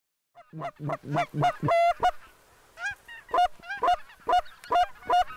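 Geese honking: a quick run of short, pitched honks begins suddenly after a moment of silence, pauses just after two seconds, then goes on in a second regular run of honks.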